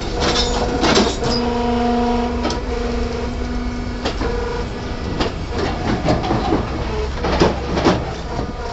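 Hydraulic concrete block-making machine at work as a pallet of freshly moulded blocks is pushed out along its chain conveyor. A humming tone starts and stops during the first four seconds or so. Several irregular metallic clanks sound throughout.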